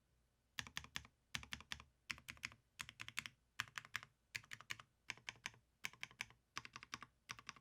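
Typing on a Type K custom mechanical keyboard with linear Banshee switches, a full polycarbonate plate and GMK keycaps. Quick keystrokes come in short runs, starting about half a second in.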